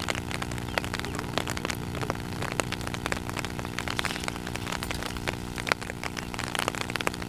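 Rain pattering on open pond water, a dense scatter of small sharp drop hits, over a steady low hum.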